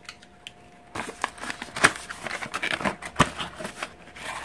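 Packaging being opened by hand: a few light clicks, then from about a second in a continuous crinkling and rustling with sharp crackles as a small box is opened and its contents taken out.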